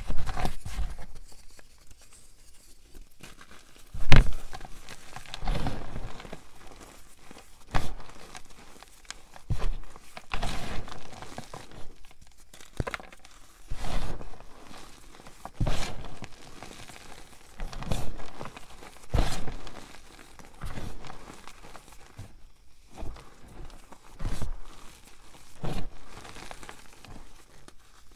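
Crushed gym chalk and cornstarch powder with small leftover chunks being squeezed and rubbed between the hands: soft crunching and crumbling in repeated bursts, about one every one and a half to two seconds, the loudest about four seconds in.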